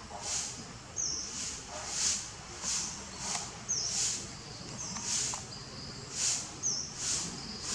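Repeated high-pitched bird chirps in a steady rhythm, about two a second, with short sharp notes in between.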